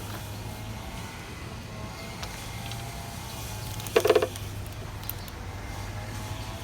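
An engine running steadily with a low hum, and a brief, loud pitched squawk about four seconds in.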